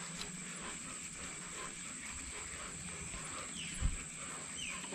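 Insects buzzing steadily in a high continuous drone. A dull low thump comes about four seconds in, and two brief falling chirps are heard near the end.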